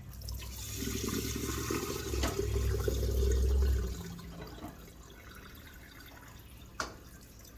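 Cloudy rinse water poured off a pot of washed basmati rice into a sink: a loud rush of water for about four seconds that dwindles to a trickle, with a single sharp knock near the end.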